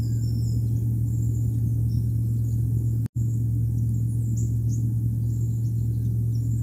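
Steady low electrical hum and rumble picked up by an outdoor wildlife camera's microphone, with faint high chirping in the background. The sound cuts out for an instant about three seconds in.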